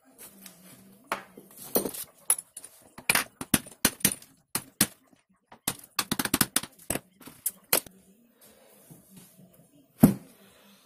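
Tools and small metal parts clicking and clinking against an aluminium V-50 moped engine crankcase during hand assembly, in a quick irregular string of sharp clicks, then one loud knock near the end as the crankcase is handled on the bench.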